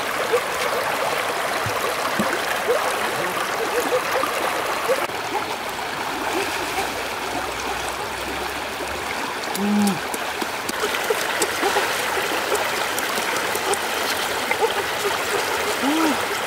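Shallow rocky stream flowing steadily over stones and pouring through a woven bamboo fish trap, with scattered short gurgling bubble sounds.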